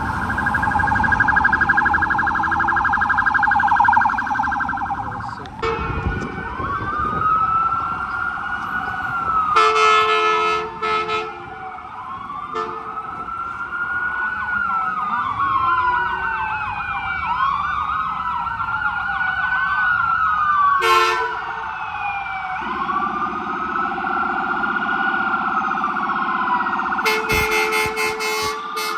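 Emergency vehicle electronic sirens, first a fast warbling yelp, then several overlapping wails rising and falling. An air horn blares in short bursts about ten seconds in, again around twenty-one seconds, and near the end.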